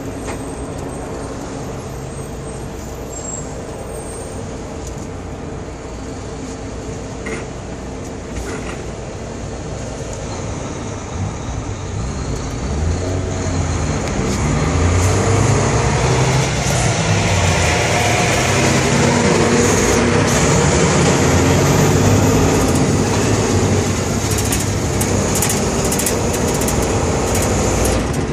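Semi truck's diesel engine heard from inside the cab, running steadily at first. From about halfway through it gets louder, its revs rising and dropping several times as the 10-speed manual gearbox is shifted up through the gears.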